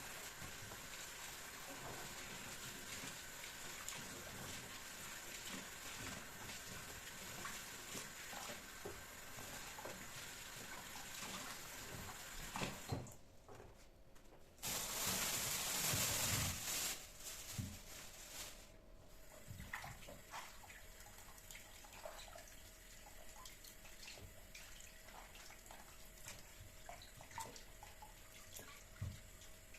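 Water running from a kitchen tap into a sink, with small knocks and clicks of handling; the flow gets louder for about two seconds halfway through.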